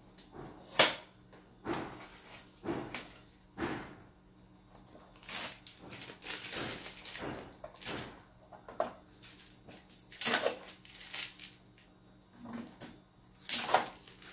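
Clear protective plastic film and blue tape seals being peeled and pulled off a new inkjet printer: irregular crinkling and rustling with sharp crackles, the loudest about a second in.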